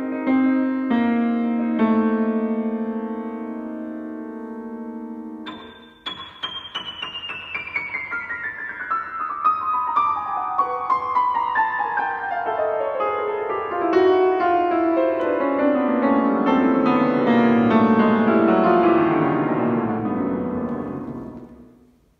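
Bösendorfer concert grand piano played solo: held chords ring and slowly decay for about five seconds, then a fast cascade of notes sweeps down from the top of the keyboard into the bass over some fifteen seconds and fades away near the end.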